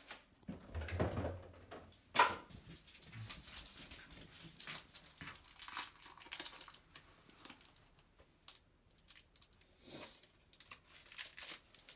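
Plastic food packaging being crinkled and torn open by hand, with irregular rustling and crackling throughout and a sharp knock about two seconds in.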